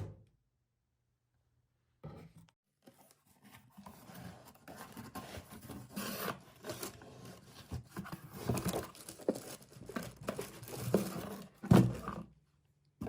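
AirPods Pro packaging being torn open and handled: irregular tearing, crinkling and rustling of paper and plastic wrapping, starting about two seconds in, with a louder tear near the end.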